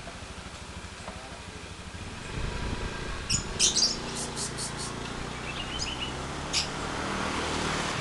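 Caged lovebirds giving shrill, sharp chirps: a quick run of calls about three and a half seconds in, and a few more around six seconds. Under them runs a low engine hum that grows louder toward the end.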